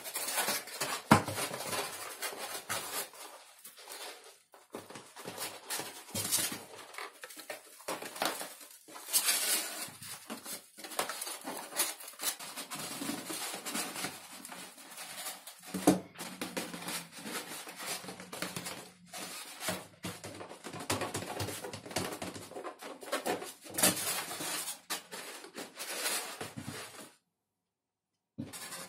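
Hands handling and pressing a curved foam-sheet fuselage skin onto XPS foam formers: irregular rubbing, scratching and creaking of foam with light taps against the work mat. It breaks off into silence for a moment near the end.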